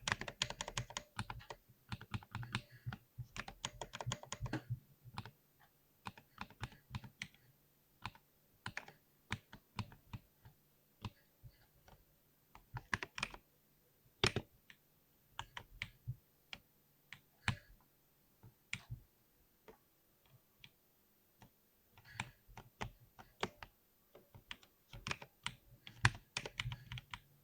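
Typing on a mechanical keyboard with Cherry MX switches. Quick runs of keystrokes come in the first few seconds and again near the end, with slower, scattered key presses in between.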